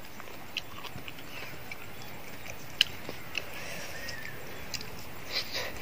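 Quiet eating sounds: a few soft crunches and mouth clicks from someone chewing shredded papaya salad, spaced irregularly over faint outdoor background noise.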